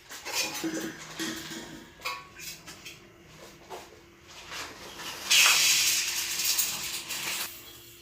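Clinking and clattering of dishes and utensils, then a loud hiss lasting about two seconds.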